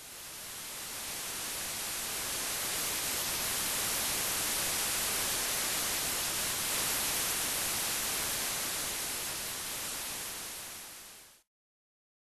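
Steady static-like hiss that swells in at the start, eases down near the end and stops about eleven seconds in.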